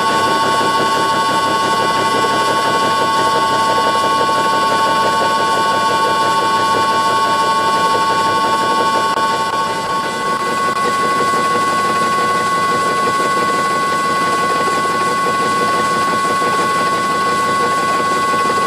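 Allen-Bradley variable frequency drive whining with several steady high tones as it runs the lathe motor, over the running noise of an 80 mm indexable face mill cutting hard scrap steel. About halfway through, one of the tones drops out and the level dips briefly.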